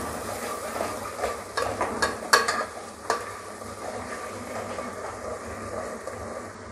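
Chopped onion frying in hot mustard oil in a metal pot, sizzling steadily while a spoon stirs it, with a few sharp clicks of the spoon against the pot in the first half.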